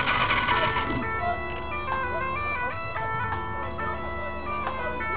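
Bagpipes playing a melody of stepped, held notes over steady drones. A loud mechanical noise fills the first second, then stops.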